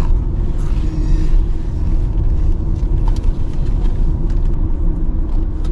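Steady low rumble inside a parked car's cabin, from the engine idling, with a few faint small clicks and rustles over it.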